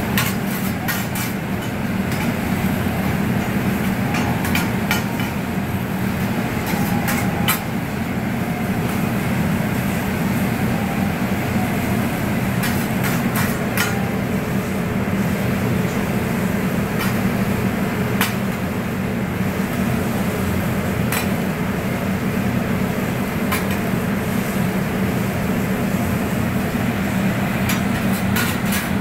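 Metal spatulas clicking and scraping irregularly against a large round flat-top griddle as food is tossed and chopped, over a steady low hum.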